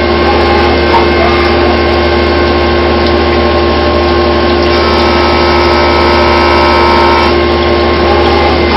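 Milltronics VM-15 four-axis CNC mill machining the side of a flashlight body under flood coolant: a loud, steady machine noise with a constant hum. A higher whine comes in about five seconds in and drops away a little after seven seconds.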